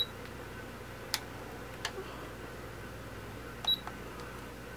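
Digital alarm clock giving short, high-pitched button beeps as its buttons are pressed to set the time: one beep at the start and another about three and a half seconds later, with a few sharp clicks in between.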